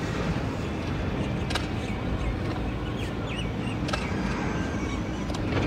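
Steady low outdoor rumble with a few short bird calls around the middle and a handful of faint clicks.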